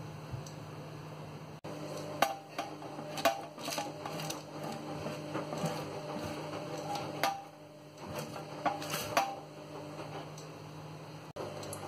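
A silicone spatula scrapes pan drippings from a metal roasting tray into a steel saucepan, with scattered sharp scrapes and knocks of metal on metal, over a steady low hum.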